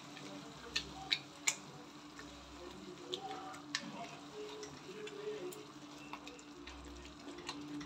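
Silicone spatula stirring a thick onion and tomato sauce in a metal pot: soft stirring with a few light clicks of the spatula against the pot, under a faint steady hum.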